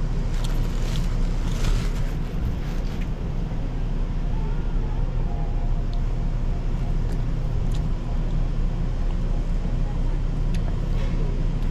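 Steady low wind rumble buffeting the microphone, with a few light clicks of an eating utensil against a food container.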